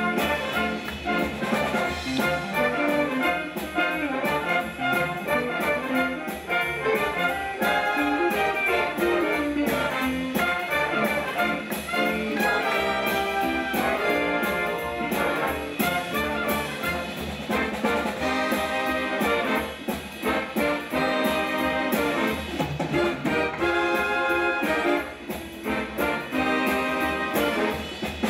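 Live big band playing a swing tune, the trumpets and trombones playing ensemble chords in short, repeated riffs.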